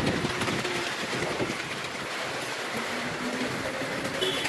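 Three-wheeled van rickshaw on the move with passengers aboard: a steady rattle and clatter of its wheels and frame over the road.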